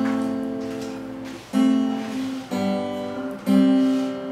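Acoustic guitar playing a song's intro: four chords strummed and left to ring, a new one about every second.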